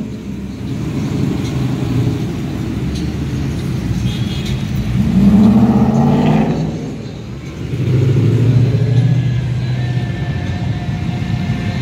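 Cars and trucks driving slowly past in a steady stream, engines running. About five seconds in one engine revs up, rising in pitch as it gets louder, and about eight seconds in another deep engine grows loud as it passes.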